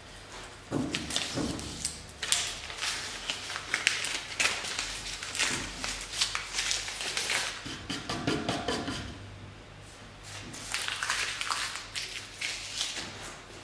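Paper crinkling and tearing in irregular runs as a taped-on paper stencil is peeled off a router-carved walnut board.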